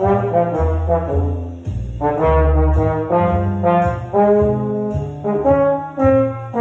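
Trombone playing a phrase of short and held notes, breaking off briefly a little before two seconds in, with a deep bass line sounding underneath.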